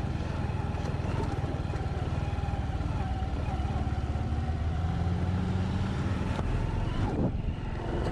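A vehicle's engine running steadily with road noise, dipping briefly about seven seconds in.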